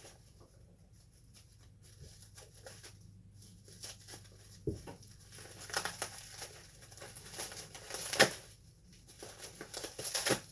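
Packaging being unwrapped by hand: scattered rustles, crinkles and small knocks, with the sharpest crackle about eight seconds in.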